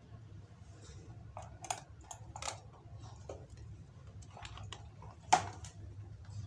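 Scattered clicks and knocks from hands handling the box body of a homemade RC truck, closing its lid and turning it over; the loudest knock comes a little over five seconds in.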